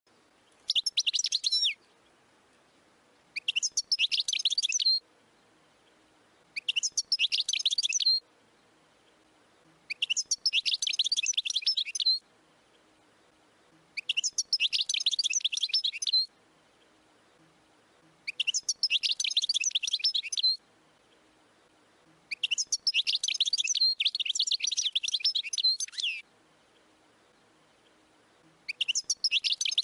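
European goldfinch singing in bursts of rapid, twittering, high song: eight phrases of one to two seconds each, one of about four seconds near the end, with pauses of one to two seconds between them.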